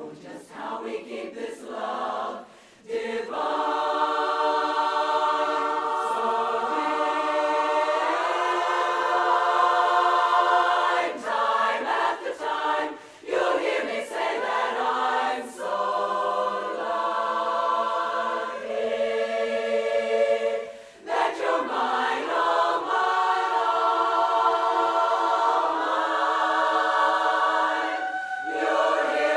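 Women's barbershop chorus singing a cappella in four-part close harmony: held, ringing chords phrase after phrase, with short breaks between phrases.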